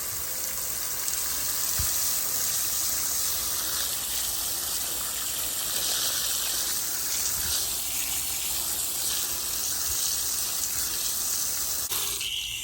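Water spraying from a hose onto a greasy engine timing chain cover, rinsing off the soaked-in degreaser with a steady hiss that cuts off suddenly just before the end.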